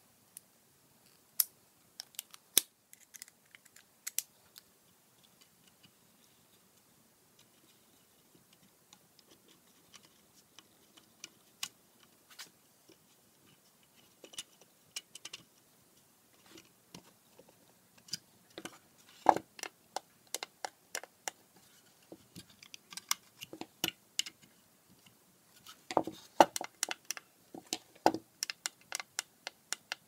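Irregular small clicks and knocks of hands fitting a circuit board into a walnut box and turning small screws with a hand screwdriver. The sounds are sparse at first and grow busier and louder in the second half, with a few sharper knocks near the end.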